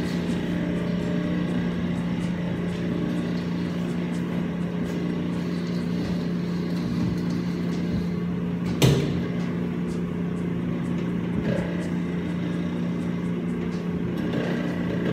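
Steady low mechanical hum of commercial kitchen machinery, with one sharp knock about nine seconds in.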